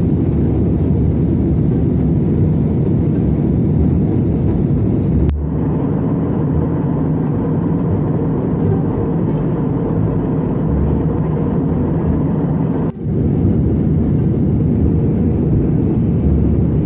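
Jet airliner cabin noise in flight: a steady low rumble of the engines and airflow heard from a window seat, broken off briefly twice.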